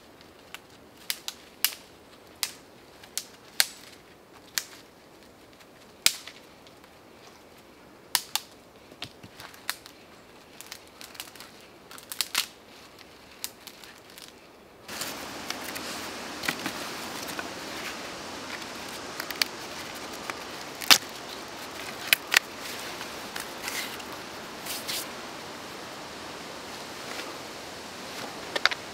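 Sharp wooden knocks of firewood being split with a hatchet or knife blade, one strike every half second to second at an uneven pace. A steady background rush comes up about halfway through.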